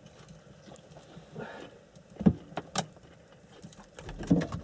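A few light knocks and clicks of food and utensils being handled on a table, a little over two seconds in and again near the end.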